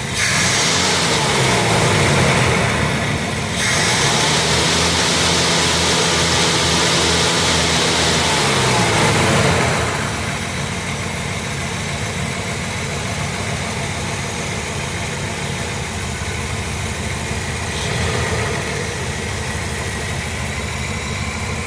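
Carbureted car engine revved from idle: the pitch climbs at the start, holds high for several seconds, then drops back about ten seconds in and settles into a steady idle of about 650 rpm, the throttle returning to idle without sticking.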